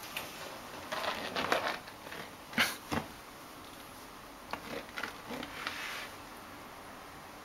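Fingers snapping and rubbing together to coax a cat: a cluster of soft clicks and rustles, then two sharp snaps a moment apart near the middle, and a few lighter ones after that.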